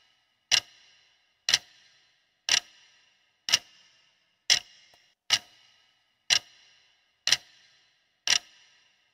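Clock-ticking sound effect marking a quiz countdown timer: sharp, evenly spaced ticks about once a second, nine in all, each with a short ring.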